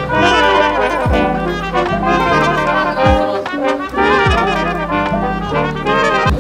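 Small brass band playing a tune: trumpet, trombone and low brass, with short low thumps about once a second.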